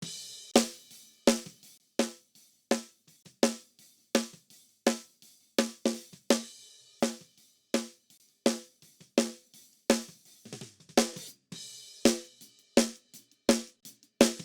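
Recorded drum track played back: a tight, high-tuned Ludwig Acrolite 14x5 snare drum struck in a steady beat about every 0.7 seconds, processed with compression, saturation and a clipper. Cymbals wash in at the start and again about twelve seconds in.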